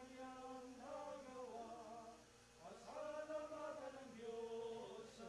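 Men's voices singing a slow hymn, long held notes gliding from one pitch to the next, with a short breath pause a little after two seconds in.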